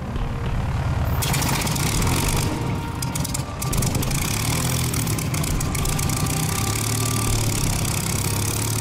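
A two-seat Supermarine Spitfire's Rolls-Royce Merlin V12 starting up. It turns over at first, catches about a second in, then runs steadily at low revs.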